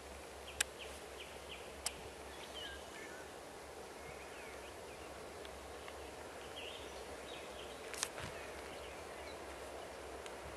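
Scattered birdsong, short chirps and calls, over quiet rural background noise with a steady low rumble, broken by a few sharp clicks.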